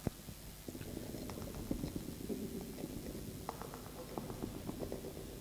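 Microphone handling noise: scattered clicks, knocks and rubbing as a stage microphone is gripped and adjusted on its stand, with a sharp click at the very start, over a faint steady hum from the sound system.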